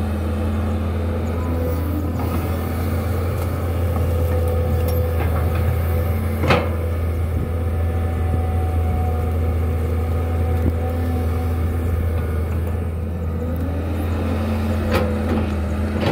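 Caterpillar 320C excavator's six-cylinder diesel engine running steadily under working load, with a tonal hydraulic whine that glides in pitch as the arm and bucket move. One sharp clank about six and a half seconds in, and a fainter one near the end.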